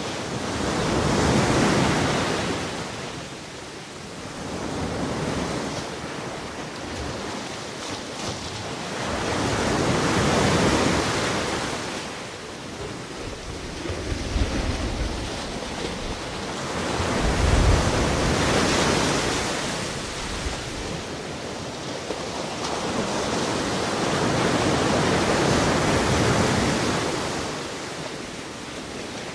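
Ocean surf: waves breaking and washing up the shore in slow surges about every eight or nine seconds, with a steady rushing wash between them.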